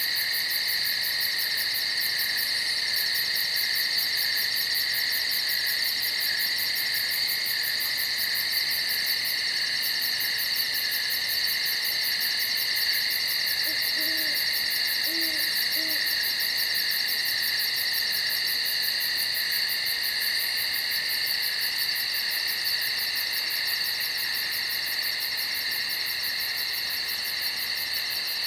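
Night insect chorus: a steady high-pitched chirring with a fast pulse running through it. About halfway, an owl gives three short hoots.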